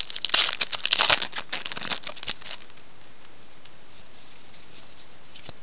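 Baseball card pack wrapper crinkling and rustling in the hands as the pack is torn open, a dense run of crackles that stops about two and a half seconds in.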